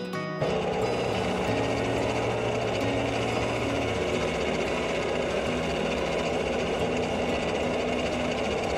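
Wood lathe running steadily while abrasive polishing paste is rubbed against the spinning maple-and-resin bowl: a continuous hiss over a low motor hum. It cuts in suddenly about half a second in.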